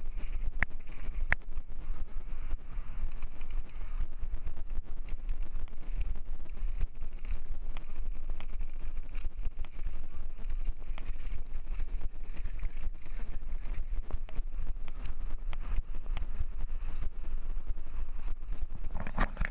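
Wind buffeting an action camera's microphone: a steady low rumble broken by frequent small knocks and crackles.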